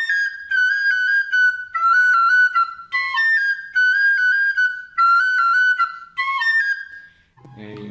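Plastic recorder playing a quick melody of short, high notes in several brief phrases, stopping shortly before speech resumes. It stands in for the seven-hole carrizo doble, a cane flute, as a practice instrument.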